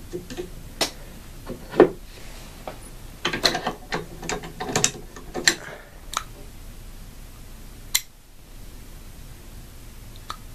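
AR-15 charging handle being fitted into the upper receiver: a run of sharp metal-on-metal clicks and clatter over the first six seconds, then one last click about eight seconds in.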